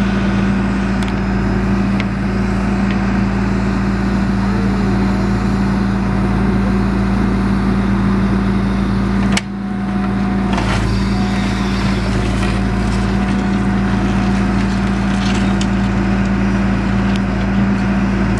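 Backhoe engine running at a steady speed while digging, with a few faint knocks and scrapes over it. The sound breaks off for an instant about nine seconds in.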